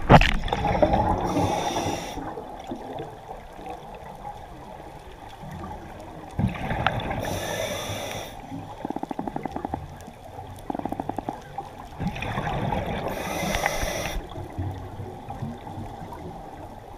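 Scuba regulator breathing underwater: three exhalations, each a gush of bubbles, about five to six seconds apart, with short rapid rattles between them. A loud knock right at the start.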